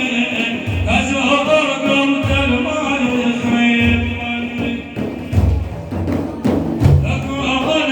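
Madih praise singing: a sung vocal line over a drum beating a slow, steady pulse, with a few sharper strikes about two-thirds of the way through.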